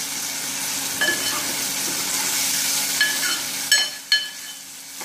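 Chopped tomatoes frying and sizzling in hot oil with cumin, mustard seeds, garlic and curry leaves in an aluminium pot, stirred with a steel ladle that clinks sharply against the pot several times, the last few close together near the end.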